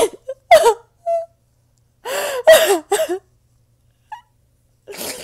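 A woman's wordless sobbing and gasping: two short sobbing gasps, a longer wailing sob about two seconds in that falls in pitch, and a breathy gasp near the end.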